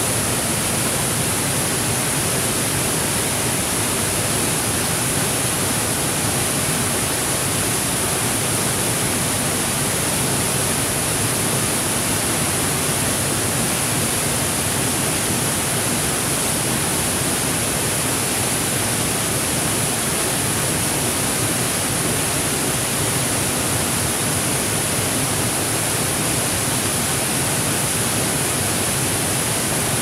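Small waterfall cascading over rocks: a steady, unbroken rush of falling water with a strong high hiss.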